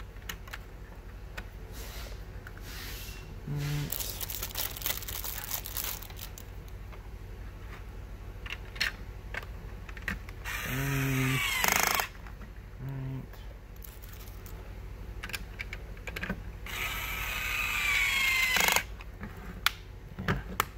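Battery-powered toy power drill whirring in three short runs of a second or two each as it drives plastic screws into a toy car body, with plastic clicks and handling between runs.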